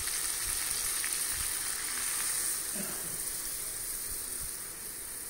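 Hot oil sizzling steadily in a kadai of frying stuffed pointed gourds as coconut milk is poured in over them.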